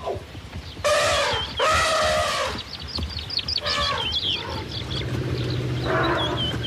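Elephant screaming: loud trumpeting calls, two long ones back to back about a second in, then shorter cries mixed with high, squealing glides.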